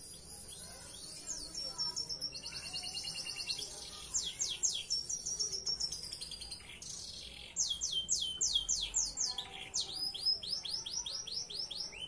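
Belgian Bossu canary singing: fast trills of repeated high notes, each sweeping downward, in phrases broken by short pauses, with the longest unbroken run in the second half.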